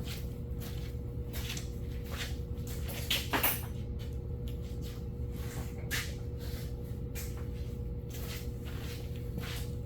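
Small clicks and knocks of hands handling carburetor parts and tools, with a louder clatter about three seconds in, over a steady low hum and a faint steady tone.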